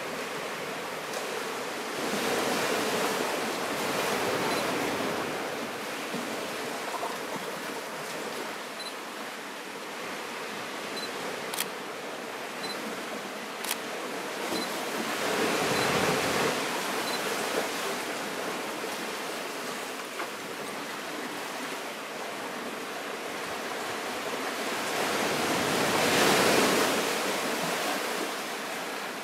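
Small waves breaking and washing up the sand among beach boulders. There are three surges of surf, near the start, about halfway and near the end, and the last is the loudest.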